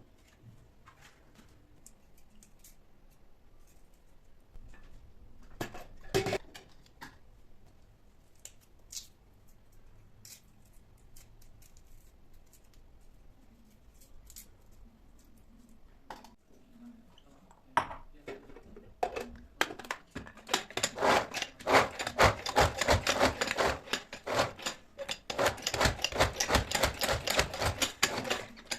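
Kitchen handling noises and scattered light clicks, with one louder knock about six seconds in; from about twenty seconds a knife starts chopping fast on a cutting board, several strokes a second.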